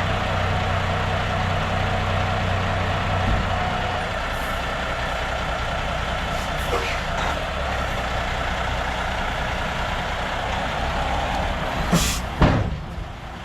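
Heavy diesel engine of a Kenworth semi tractor idling steadily, its pitch settling lower about four seconds in. Near the end come two short, sharp bursts about half a second apart.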